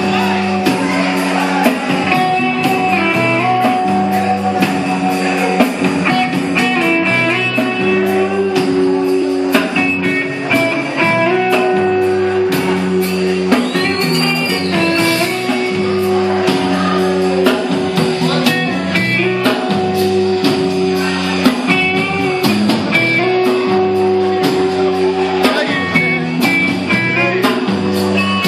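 Live rock band playing: electric guitar over a drum kit and a steady low line of held notes.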